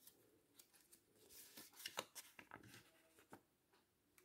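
Faint crinkling and rustling of a small folded paper instruction sheet being unfolded by hand, a short cluster of soft paper crackles in the middle and one last tick near the end.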